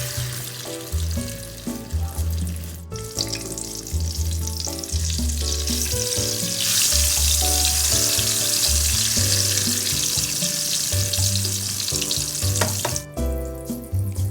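Food frying in a pan: a steady sizzle that grows louder about halfway through and stops abruptly near the end, under background music.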